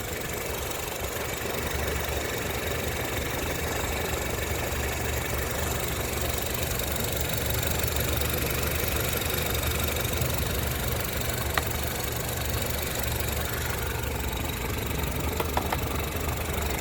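2014 Honda Civic engine idling with a steady low drone. The owner says the noise eases with the air conditioning off and wonders if it is an engine mount.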